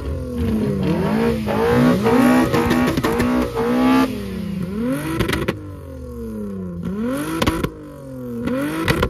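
VR6 engine revved hard at standstill through its exhaust. A quick run of rising and falling rev blips comes first, then slower single revs that climb and drop back, with a few sharp cracks among them.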